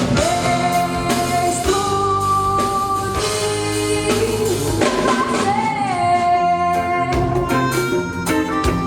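Live band music: a woman sings long held notes, some sliding into pitch, over drum kit, percussion, electric guitar and keyboards.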